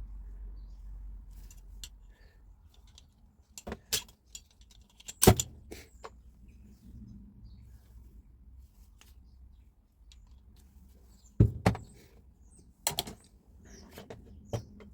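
Scattered clinks and knocks of tools and metal parts being handled during a rotary hammer repair, the loudest about five seconds in and a close pair a little after eleven seconds.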